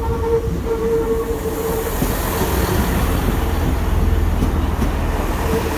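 Great Western Railway Class 165 Turbo diesel multiple unit running into the platform close by: a steady low rumble with a steady whine through the first couple of seconds and again briefly near the end.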